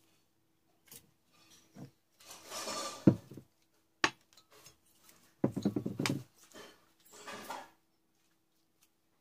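Hands handling a glass jar with a screw lid and the rubber and plastic tubes pushed through it: rustling and scattered clicks, a sharp knock about three seconds in, and a short clatter of knocks a little past halfway.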